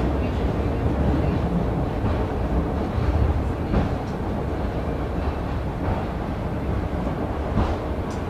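Sakamoto Cable funicular car running down its track through a tunnel, heard from inside the cabin: a steady low rumble of the wheels on the rails, with a couple of faint clicks.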